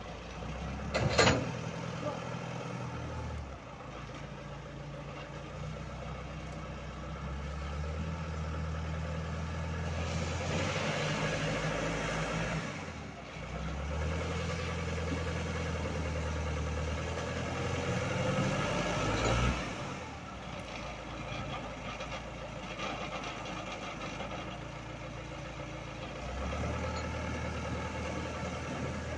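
Forklift engine running while it works a bucket into a snow pile, speeding up under load twice for several seconds, the second time with a rising pitch. A sharp knock about a second in.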